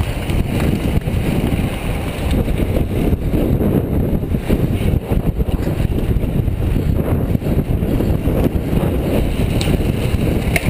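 Wind rushing over the microphone of a camera on a moving road bicycle: a steady low rumble, with a couple of light clicks near the end.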